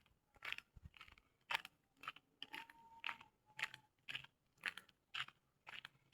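Faint footsteps crunching on rough ground at a steady walking pace, about two steps a second.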